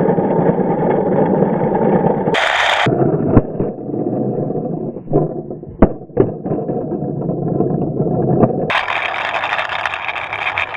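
Muffled, steady rumble of a small wooden buggy's wheels rolling fast along a wooden race track, heard from a camera riding on the buggy. Several sharp knocks come about halfway through as the buggy crashes and tumbles.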